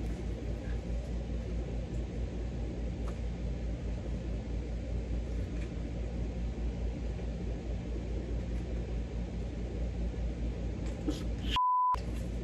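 A steady low background hum, then near the end a short single-pitch censor bleep that masks a swear word.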